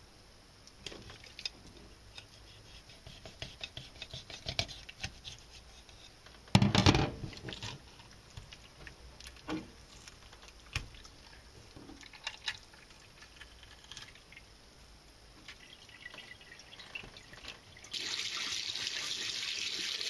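A largemouth bass being cleaned by hand on a plastic cutting board in a stainless steel sink: scattered knocks, scrapes and wet handling noises as it is cut and its head is torn off to draw out the guts, with one louder thump about a third of the way in. Near the end a kitchen tap suddenly starts running, water splashing over the fish into the sink.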